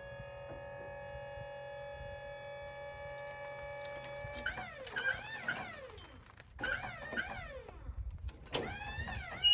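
Portable sawmill machinery whining steadily, then rising and falling in pitch in quick repeated sweeps, in three short spells.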